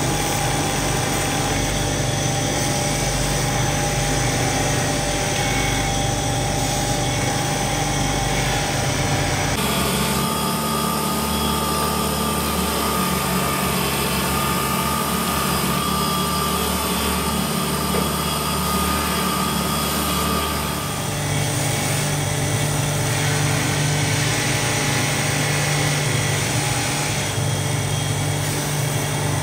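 Motor-driven buffing wheel spinning with a motorcycle wheel hub pressed against it for polishing: a steady motor hum under the hiss of the buff on the metal. The hum shifts abruptly in pitch twice.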